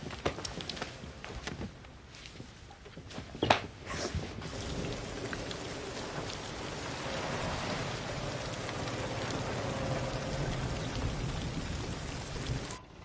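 Steady rain, heavier from about four seconds in, with a few sharp knocks in the first few seconds, the loudest about three and a half seconds in. It cuts off suddenly near the end.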